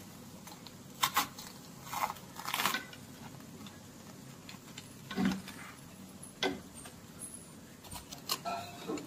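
Someone biting into and chewing a toasted peanut butter and marshmallow fluff sandwich: a handful of short, irregular crunches of toast.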